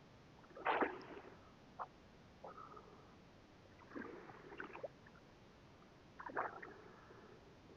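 Faint small waves lapping and sloshing at the water's edge, a few soft splashes one to two seconds apart.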